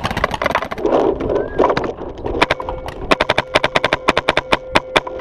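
Paintball markers firing: sharp pops that come thick and fast from about halfway through, several a second, with a thin steady whine behind them.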